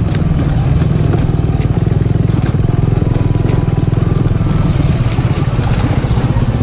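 Motorcycle engine running steadily as the bike is ridden over a rough dirt track, with scattered short clicks and rattles.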